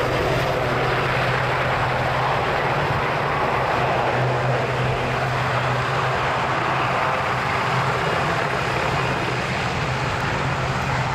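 Boeing Stearman biplanes' 450 hp radial engines and propellers running steadily in flight: a constant low hum with a broad rushing drone that holds level throughout.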